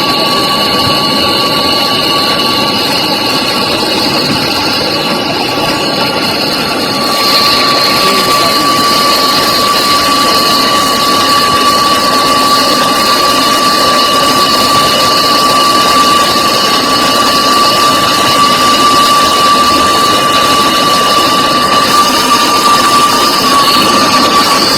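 A machine's motor running steadily with a high whine, getting a little louder about seven seconds in.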